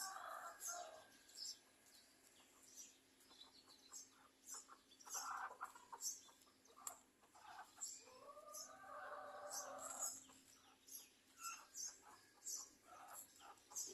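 Small birds chirping faintly throughout, with a rooster crowing once about eight seconds in and shorter fowl calls earlier.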